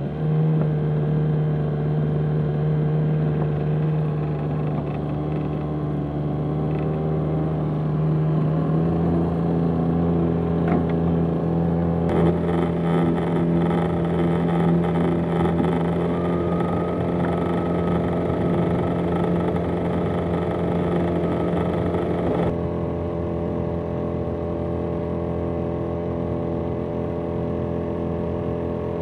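Small outboard motor running steadily at full throttle, pushing a small boat along, with a couple of abrupt shifts in the sound where the footage is cut.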